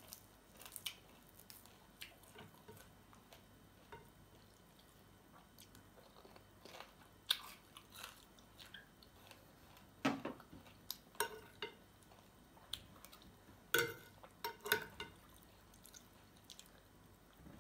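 Close-up chewing and crunching of crispy fish-sauce fried chicken, with scattered sharp crackles as the crisp pieces are torn and bitten. A few louder crunches come about 7, 10 and 14 seconds in.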